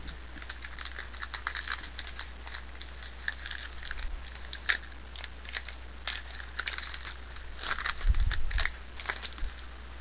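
Wrapper of a 2008 Topps Allen & Ginter baseball card pack crinkling and tearing as it is opened by hand, a run of quick crackles, with a low bump of handling near the end.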